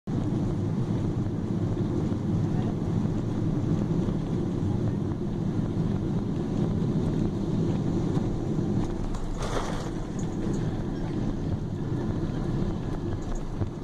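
Boeing 777 cabin noise during landing: a steady low rumble of engines and airflow, with a brief hiss about nine and a half seconds in.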